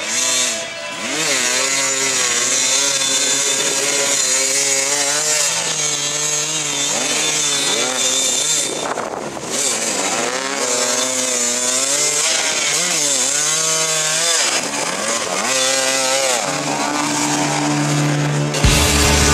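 Dirt-bike engines revving hard under load on a steep climb, the pitch swinging up and down again and again, with a brief dip about nine seconds in.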